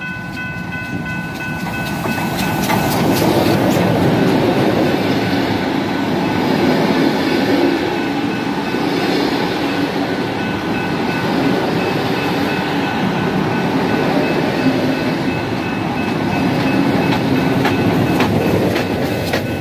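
A steam locomotive's chime whistle sounds for the first couple of seconds. Then a steam-hauled train of passenger carriages passes close by, rumbling with its wheels clicking over the rail joints.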